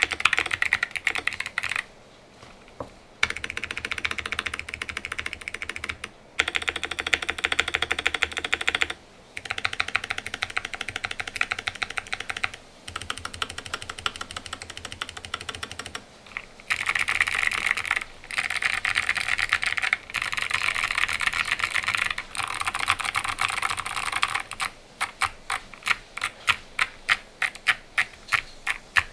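Typing on a QK65 mechanical keyboard with clicky Kailh Box Jade switches, an aluminium plate and DROP MT3 keycaps: dense runs of sharp keystroke clicks broken by short pauses, ending with slower single keystrokes about four a second.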